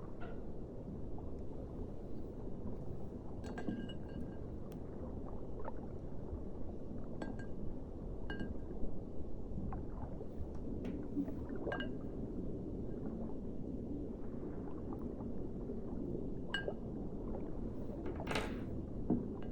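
Water beads being stirred and squished by hand in a container, with scattered small clinks, some with a short ring, and a brief louder rustle near the end.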